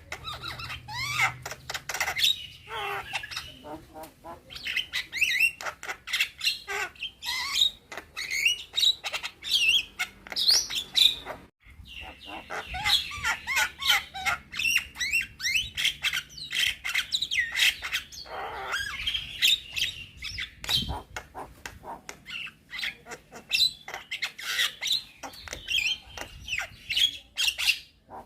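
Young Javan myna (jalak kebo) singing a long, varied song of rapid chirps, whistles and pitch glides mixed with harsher noisy notes, broken once by a short pause a little under halfway through.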